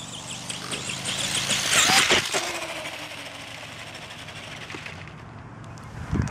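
Tamiya Super Hornet RC car driving: its electric motor hums and its tyres rush over the ground, swelling to a loud peak about two seconds in, then settling, with a short thump near the end.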